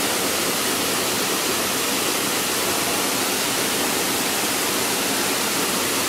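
Steady rushing of water from a wide, low waterfall pouring over a rock ledge into a river pool.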